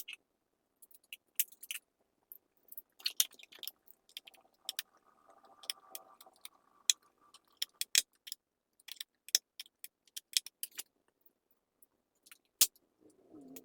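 Screwdriver working the small screws of a laptop's underside panel: irregular sharp metallic clicks and light scrapes as the bit is pressed into a tight screw and turned.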